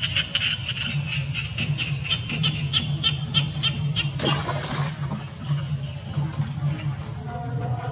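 A young monkey jumping from a rock into shallow floodwater: one short splash about four seconds in, over a steady background of fast, even ticking and a low pulsing hum.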